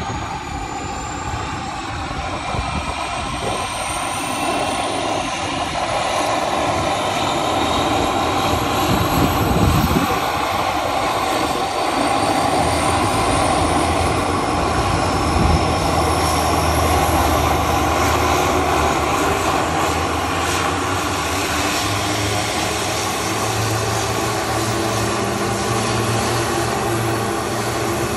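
Garrett TPE331-10 turboprop engines of a Twin Commander starting up with five-blade MT propellers. A turbine whine rises steadily in pitch as the engine spools up and grows louder over the first several seconds, then settles into steady running with the propellers turning.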